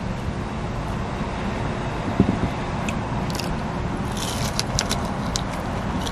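Crisp crunching as teeth bite into a deep-fried spring roll about four seconds in, several sharp crackles over a second or so, over a steady hum inside a car. A brief low sound comes about two seconds in.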